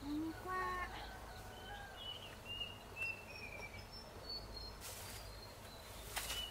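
Small birds chirping, many short high calls through the middle. Right at the start a short rising cry with overtones, and near the end two brief rustling knocks.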